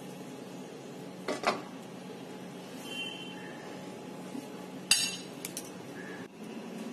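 A fork and a ceramic plate knocking against a nonstick pan as boiled chicken breast is lifted out: two light knocks about a second and a half in, then a sharper ringing clink near five seconds, followed by a few small ticks. A steady low hum runs underneath.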